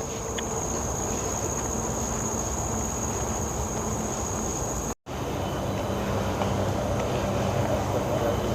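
Steady high-pitched insect drone over outdoor background noise. It stops at a cut about five seconds in, and a low steady rumble takes over.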